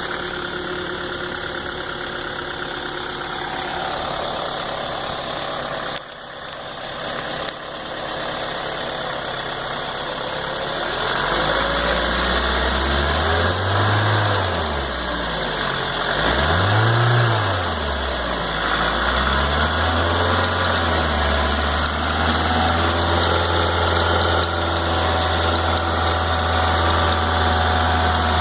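Toyota 2ZZ-GE 1.8-litre four-cylinder engine of a 2000 Celica running, revved up and back down three times about halfway through, then settling to a steady idle. The owner hears a knocking, clicking sound when it is revved that seems to come from the left side of the engine, and does not know its cause.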